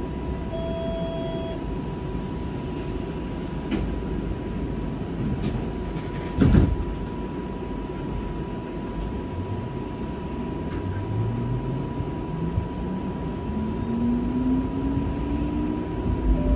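Interior of a Flexity Outlook streetcar running: a steady low rumble with a thin steady whine, a short beep near the start and a single knock about six seconds in. From about ten seconds in, a motor whine climbs steadily in pitch as the streetcar picks up speed.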